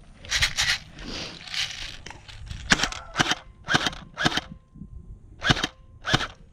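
Airsoft guns firing: about ten sharp single pops, many in quick pairs about half a second apart.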